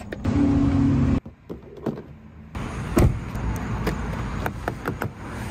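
Car door closing with one sharp, loud thud about three seconds in, followed by a few lighter clicks at the outside door handle. Before that, a steady hum in the first second.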